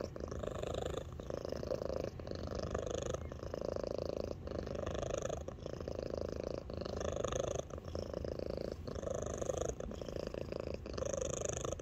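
Domestic cat purring loudly and steadily, the purr breaking briefly about once a second.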